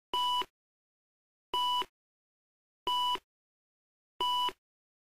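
Film leader countdown beeps: four short, identical beeps of one steady high tone, about 1.4 seconds apart, each with a burst of hiss and crackle under it.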